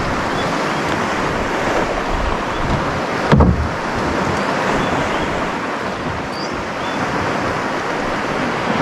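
Steady rush of waves and wind, with one low thump about three and a half seconds in.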